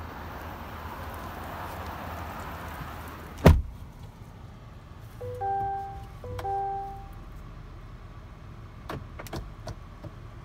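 A truck door slamming shut about three and a half seconds in, the loudest sound here. After it, the GMC Sierra's dashboard warning chime sounds twice as a short two-tone chime, the alert for the 'Key Missing' message.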